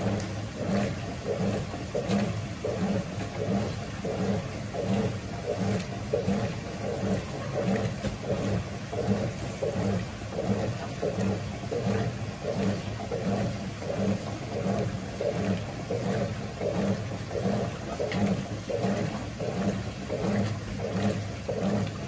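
GE Imagination 10 kg top-load washing machine agitating a load of sofa covers: the agitator swishes back and forth through the soapy water in an even, rhythmic churn of about two strokes a second, with the drive's low hum under the sloshing.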